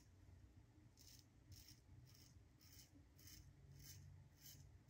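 Faint short scrapes of a Tatara Nodachi safety razor cutting through stubble, a stroke about twice a second.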